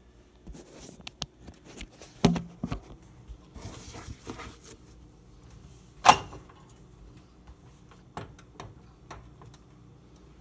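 Kitchen handling noises: a series of clicks, knocks and rustles. There is a knock about two seconds in, and a sharper, louder one about six seconds in as shaped bread dough is dropped into a metal loaf tin.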